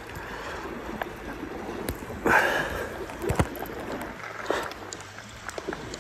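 Sea washing gently against shoreline rocks, with a loud brief rushing swish about two seconds in and a sharp thump about a second later.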